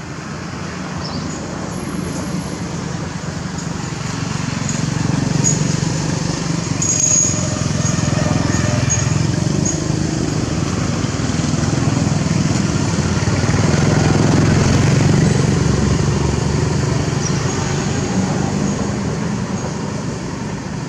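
Low rumble of a passing motor vehicle, growing louder toward the middle and fading near the end, with faint high chirps above it.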